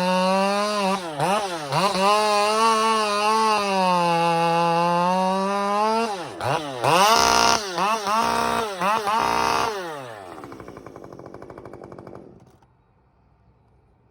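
Husqvarna 550 XP Mark II two-stroke chainsaw held at high revs, dipping and snapping back a couple of times, then blipped through a run of quick revs. About ten seconds in it drops to a low idle, and it shuts off a couple of seconds later.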